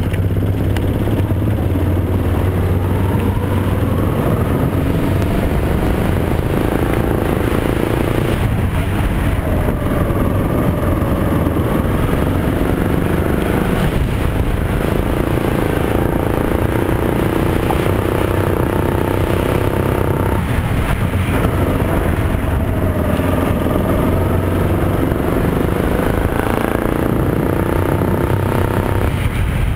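Rental kart's Yamaha MZ200 single-cylinder four-stroke engine running hard through a lap, heard close up from onboard. Its revs climb and fall again and again, with about four short dips where it lifts off for corners.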